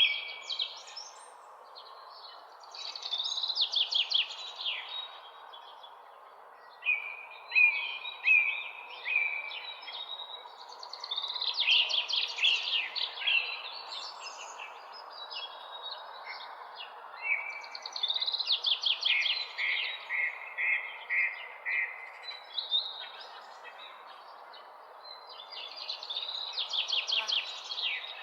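Songbirds singing outdoors: a phrase of quick, high chirps every few seconds, over a steady background hiss.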